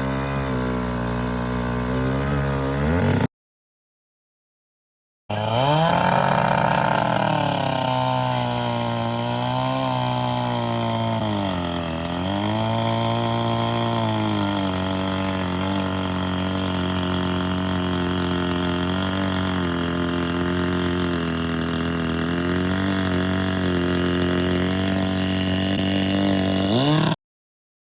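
Vintage two-stroke chainsaw engine running without cutting: a few seconds of steady running, then dead silence for about two seconds at an edit. A saw then revs up and down a few times, settles to a steady run, and rises once more just before the sound cuts off abruptly.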